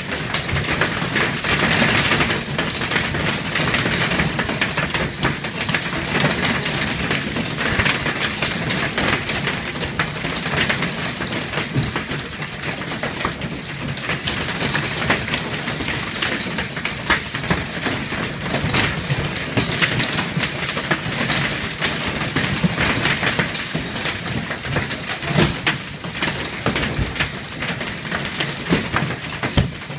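Hailstones hitting the office's large glass windows: a dense, continuous clatter of countless small impacts that swells and eases in waves.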